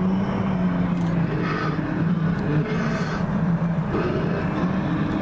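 Low, wavering growl from a life-size animatronic Dimetrodon, played through the figure's sound system, with short breaks about a second, two and a half seconds and four seconds in.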